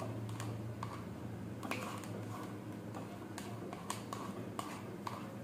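Light, uneven clicks and scrapes of a small spoon scooping soft, melted ice cream out of a paper cup, over a steady low hum.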